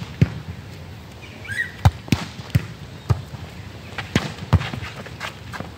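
A volleyball in play on an asphalt court: about nine sharp smacks at uneven intervals as hands strike the ball and the ball hits the ground, three of them in quick succession about two seconds in.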